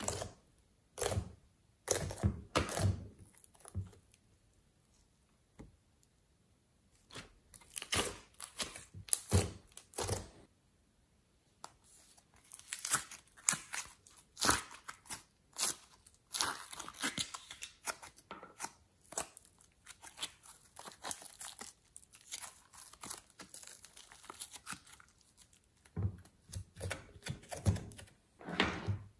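Fingers pressing and poking into glossy slime, giving irregular sticky pops and crackles in short clusters with quiet gaps between. Slime is then peeled out of plastic tubs and dropped in with tearing, crackling sounds, and a few duller squishy thuds near the end.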